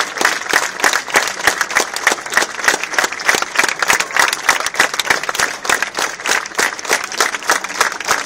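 Crowd applauding, many hands clapping in a dense, steady patter.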